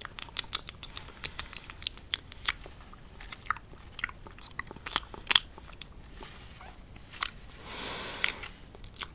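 Close-miked ASMR mouth sounds: irregular wet clicks and smacks like eating, with a short breathy sound about eight seconds in.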